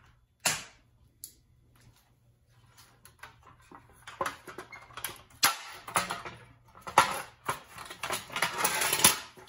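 Steel lid of a .50 cal ammo can being handled and worked on a wooden workbench: a single sharp metal knock about half a second in, then from about four seconds a busy run of clanks, clicks and scraping rattles as the lid is turned and pried at to pop out its seal plate.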